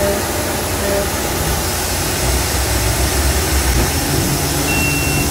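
Hardinge Bridgeport GX1600 CNC vertical machining center running with its table traversing along the X axis under power feed, a steady mechanical hum and whir of the axis drive, with the spindle stopped. A thin, high steady whine comes in near the end.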